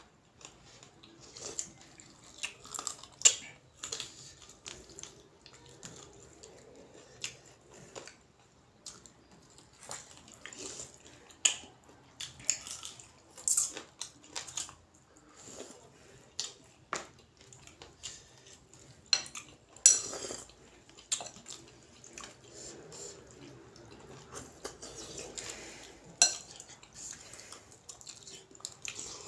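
Eating utensils clinking and scraping against a ceramic bowl: irregular sharp clinks, loudest about three seconds in, about twenty seconds in and again a few seconds later.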